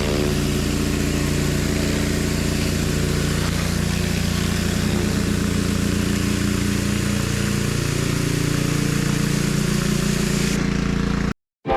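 Pressure washer's petrol engine running steadily under a constant hiss. It cuts off suddenly near the end.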